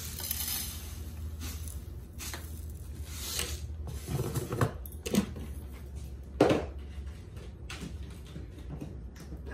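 Dry bread crumbs poured from a canister into a ceramic plate with a brief soft rustle. Then a run of knocks and scrapes as the plate is moved and shaken on the worktop to spread the crumbs, the sharpest knock a little past the middle.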